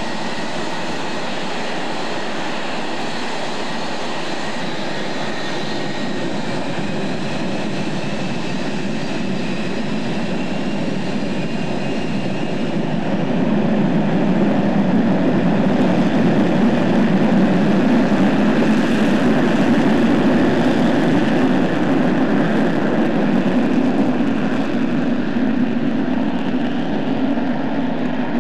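Boeing 727-200's three Pratt & Whitney JT8D turbofans running at taxi power: a steady jet roar with a faint high whine, growing louder about halfway through.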